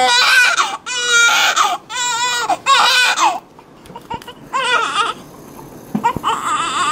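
Newborn baby crying: a string of short, high, wavering wails, each about half a second to a second long, with a lull a little past the middle before the crying starts again.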